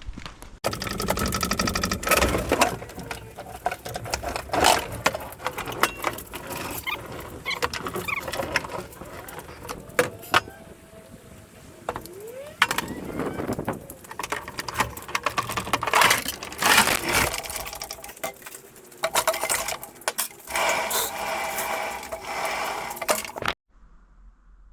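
Hand work on a bus engine and transmission: metal tools and heavy parts clanking and knocking, with a couple of stretches of fast mechanical rattling, near the start and again near the end.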